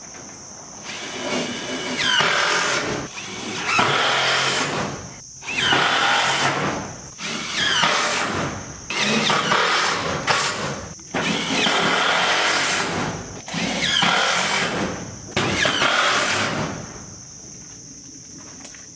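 Power drill driving screws through a metal wall panel into the shed's wooden framing: about eight runs of a second or so each, each with a whine that glides in pitch as the screw goes in. Crickets chirp steadily underneath.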